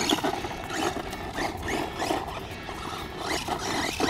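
Brushless electric motor of a 1/16-scale 4WD RC monster truck whining in short rising throttle bursts, with its tyres scrabbling on loose dirt.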